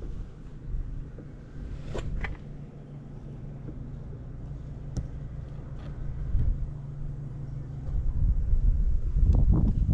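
Buell XB9S Lightning's air-cooled V-twin idling steadily with no abnormal noises. It grows louder near the end.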